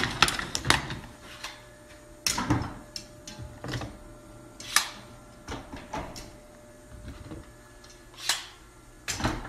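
Sharp clicks and knocks at irregular intervals, the sharpest about halfway through, with a short rising-and-falling swell near the end.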